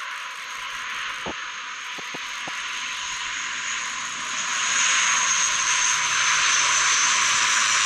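ShinMaywa US-2 flying boat's four turboprop engines and six-bladed propellers flying past: a steady high whine over a rushing wash of propeller noise, growing louder about four and a half seconds in as the aircraft comes closest.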